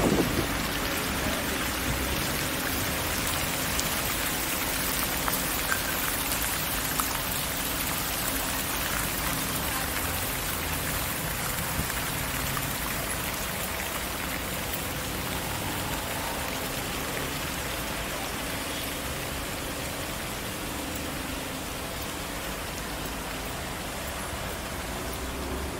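Steady, even outdoor hiss with a faint low hum underneath and no distinct events.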